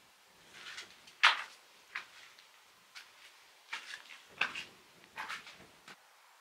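Footsteps scuffing on a dirt and grit floor, about eight uneven steps, the loudest a little over a second in.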